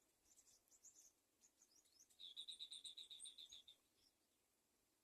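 Faint, high bird chirps, then about two seconds in a rapid run of about a dozen quick, even notes lasting a second and a half.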